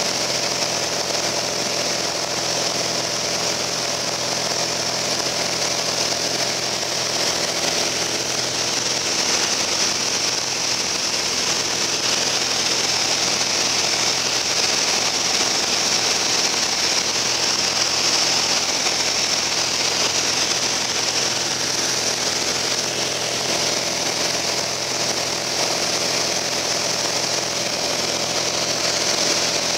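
Steady drone of a Piper Cherokee Arrow's single piston engine and propeller in flight, heard from inside the cabin, with a constant high hiss over it.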